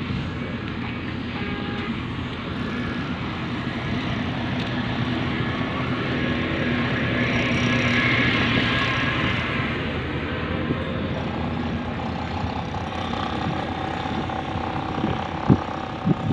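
Steady rumble of vehicle traffic that swells about halfway through and then fades, with a few sharp knocks near the end.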